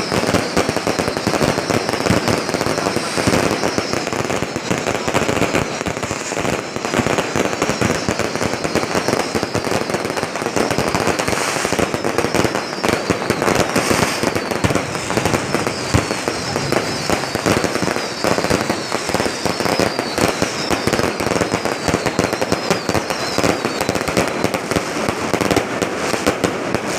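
Fireworks display: a dense, continuous barrage of bangs and crackling that keeps up without a break.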